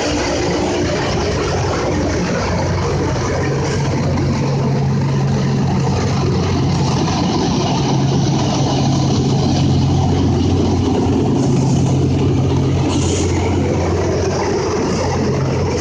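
Loram rail grinder train passing slowly, its engines running with a steady low hum under a dense, harsh noise of grinding stones working the rail.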